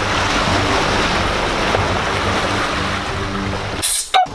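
Small waves washing onto a pebble and boulder beach, a steady rushing surf. It breaks off abruptly near the end with a brief sharp burst of noise.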